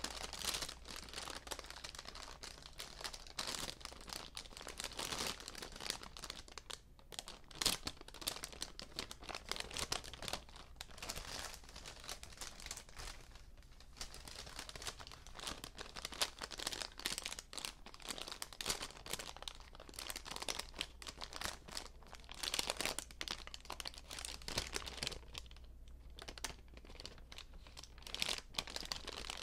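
Paper bags being crinkled and crumpled, a dense, continuous crackling with a few brief lulls.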